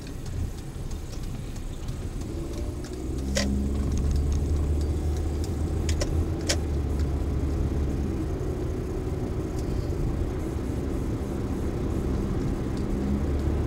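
Car engine and road noise heard from inside the cabin through a dash camera's microphone, the low rumble growing louder about three seconds in. A few sharp clicks sound over it.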